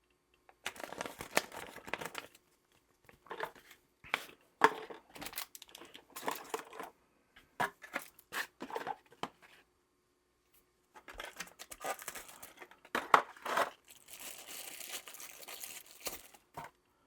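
Packaging being handled and unwrapped: irregular bursts of crinkling and rustling, with a pause of about a second and a half midway and a longer spell of crinkling near the end.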